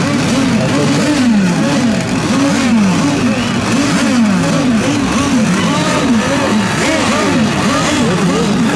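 Several radio-controlled racing boats' small engines running at high revs together, the pitch of each rising and falling again and again.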